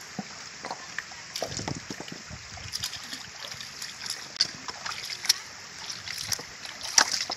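Footsteps in flip-flops splashing through shallow seawater and clacking on wet rocks, over a steady hiss of water. Sharp clicks and splashes come every half second or so, the loudest near the end.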